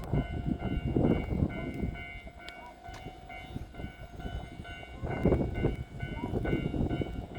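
Electric train moving on the rails with a rumbling run of wheel noise and several steady whining tones over it. The sound eases off in the middle and grows louder again about five seconds in.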